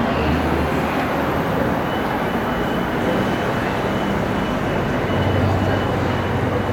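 Steady, loud rumble of heavy machinery running on a construction site, with a faint high whine joining about two seconds in.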